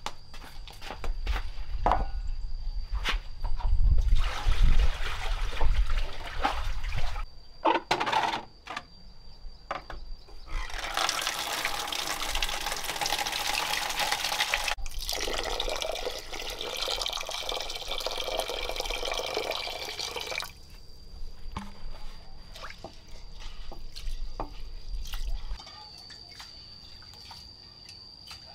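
Water running or being poured, in two spells of several seconds each, after a stretch of scattered knocks and handling thumps. A thin, steady, high insect tone runs underneath.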